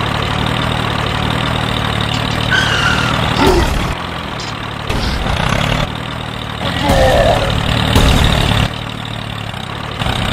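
Tractor engine running at a low, steady chug, swelling louder and dropping back a few times, with a few short high glides over it.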